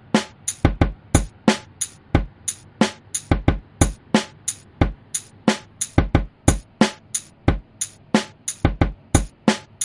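Background music: a sparse drum-machine beat of deep kick-drum hits and sharper snare-like hits.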